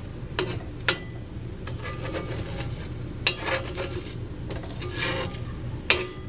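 Metal slotted spatula scraping and turning scrambled eggs in a cast iron skillet, with irregular sharp scrapes and clinks of metal on the iron pan about once a second.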